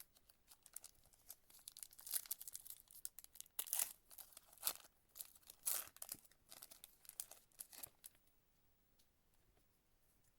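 A trading-card pack wrapper being torn open and crinkled, in a run of short crackling rips over about eight seconds.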